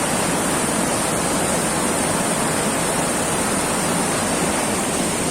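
Fast mountain river rushing, a loud, steady noise of flowing water.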